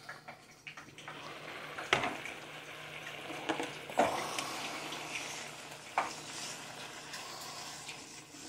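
Rice sizzling and bubbling in a pan, a steady hiss, with sharp clacks of the glass lid and a spoon against the pan about two, four and six seconds in, then stirring near the end.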